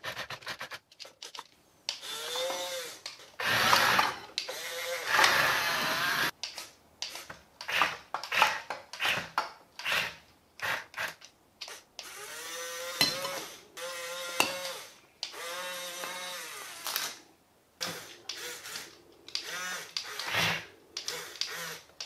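Small electric motors of a radio-controlled Huina toy excavator and dump truck whining in many short start-stop bursts, the pitch rising and falling as the motors speed up and slow down while the arm, bucket and dump bed move.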